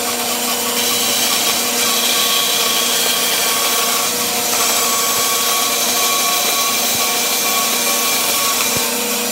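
Band saw running with a steady hum, its blade cutting lengthwise through a wooden hammer-handle blank.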